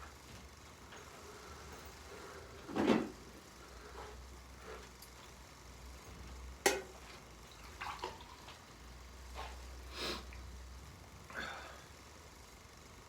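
Scattered bumps, rustles and a sharp click from someone moving about and handling things, over a low steady hum: a louder thud about three seconds in, the click about halfway through, then several softer knocks.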